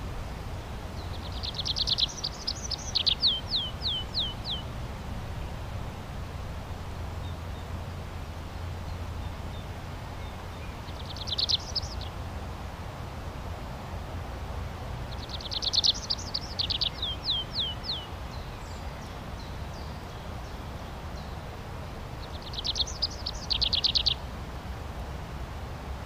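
Tree pipit singing: four separate song phrases, each a fast trill, the first and third ending in a run of slower, falling notes. A steady low background rumble runs beneath.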